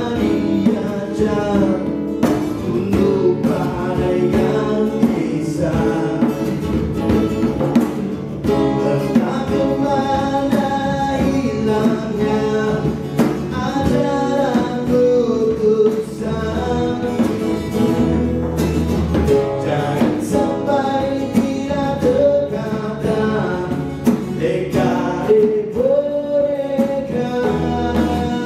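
Live acoustic music: a man sings a melody into a microphone over a strummed acoustic guitar, with a djembe played by hand keeping a steady beat.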